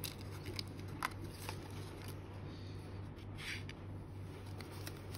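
Faint clicks and rustles of fingers handling a clear plastic case with a foam insert, a few separate touches over a steady low hum.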